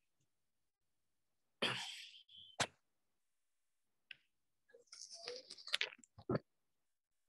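A few sharp clicks and short scratchy noises, with dead silence between them.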